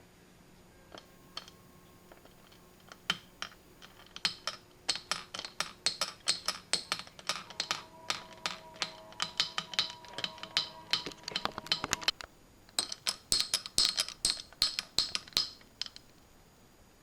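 Rapid clicking of keys being typed on a keyboard, in two quick runs with a brief pause about twelve seconds in.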